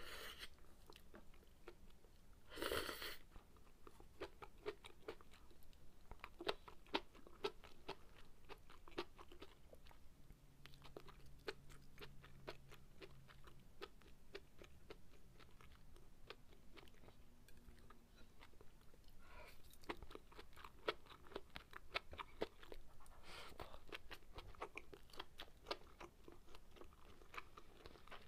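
Close-miked soft wet chewing of sukiyaki: a steady run of small mouth smacks and clicks, with a short louder noisy burst about three seconds in.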